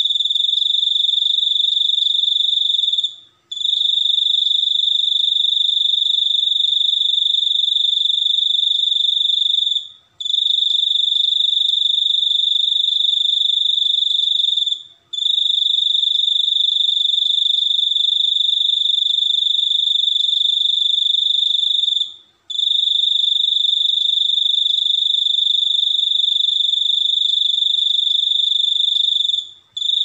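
Cricket singing a continuous high-pitched trill, held for stretches of five to seven seconds at a time with short breaks in between.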